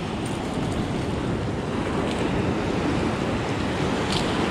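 Ocean surf washing onto the beach, a steady rush, with wind buffeting the microphone.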